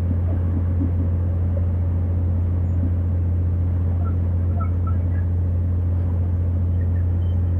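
Borewell drilling rig's engine running with a steady low drone, over the rushing of water blown up out of the newly drilled borehole and splashing onto the rock.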